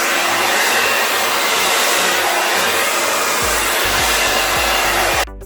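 Conair InfinitiPro Knot Dr dryer brush blowing air steadily, a loud even rush that cuts off suddenly near the end.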